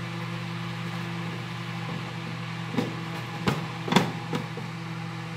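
Food dehydrator running with a steady hum, with a few knocks and clicks about halfway through as one of its stainless steel mesh trays is handled and slid out.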